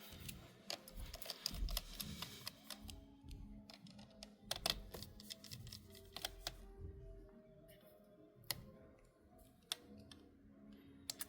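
Faint background music with scattered small clicks and taps of tools on a MacBook's internal cable connectors and parts as the cables are unplugged from the logic board.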